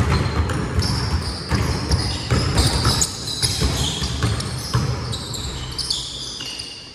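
Pickup basketball game in play: a basketball bouncing on a hard court among players' footsteps, with short high squeaks of sneakers throughout.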